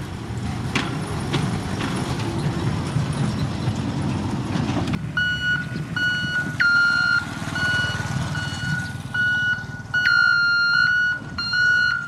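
Dump truck engine running as it drives along a dirt road. About five seconds in, a truck's reversing alarm starts, a high beep repeating again and again as the dump truck backs up, over a quieter engine.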